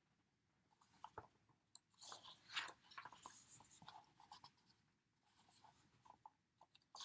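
Faint rustling and light taps of album photobook pages being handled and turned, in short bursts, the loudest about two to three seconds in.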